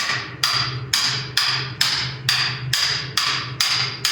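Steady hammer blows on metal, a little over two a second, each with a bright metallic ring, driving a seized rear wheel bearing hub out of a 2015 Subaru Forester's knuckle.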